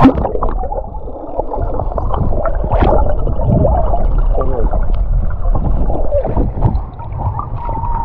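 Muffled underwater sound of seawater churning and gurgling around a submerged action camera, with scattered knocks and clicks throughout.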